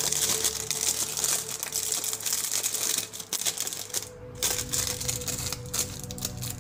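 Thin clear plastic wrapper crinkling and crackling as it is pulled off a puzzle cube, with a short lull about four seconds in.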